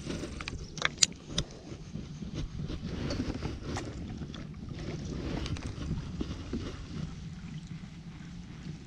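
Kayak on the water: a steady low rumble of water and hull noise, with a few sharp clicks in the first second and a half.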